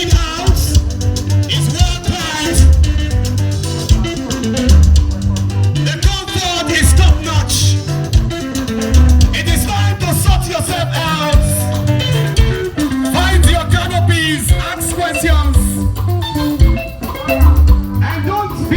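Upbeat music with singing over guitar and a heavy, regular bass beat.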